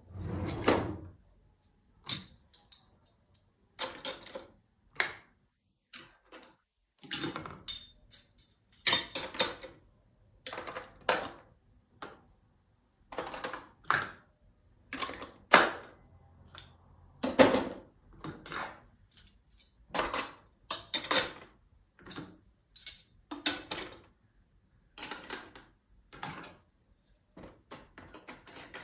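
Irregular clatter of dishes and kitchenware being handled: clinks, knocks and short scrapes coming one after another in clusters.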